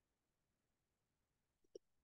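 Near silence: faint room tone, with one soft small click or tap near the end.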